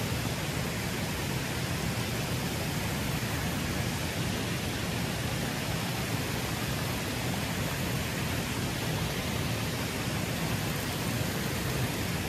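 Water pouring over a low concrete weir, a steady rushing.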